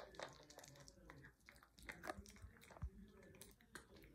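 Small dog chewing and biting a dog chew, faint irregular crunches and clicks.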